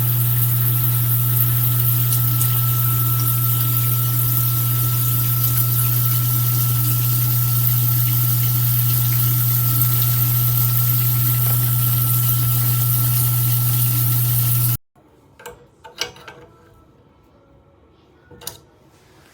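Water spraying from a stainless steel rainfall shower head, a steady loud hiss with a strong low hum underneath. It cuts off abruptly about 15 seconds in, leaving only a few faint clicks and knocks.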